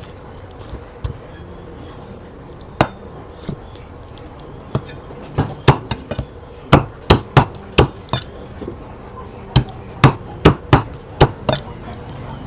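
A blade chopping through chicken: a string of sharp strikes at uneven intervals, starting about three seconds in and coming faster in the second half, often in quick runs of two or three.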